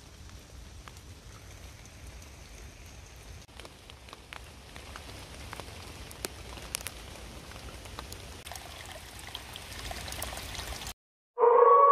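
Steady rain with scattered individual drops falling on wet woodland leaves. About eleven seconds in it cuts off, and loud music with sustained tones starts.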